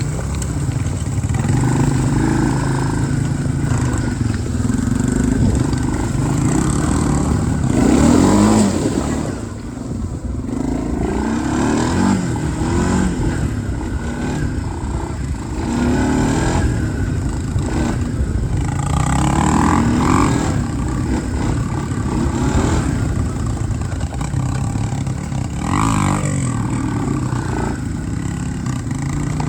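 Four-wheeler (ATV) engines running while riding, the engine note rising and falling with throttle and gear changes.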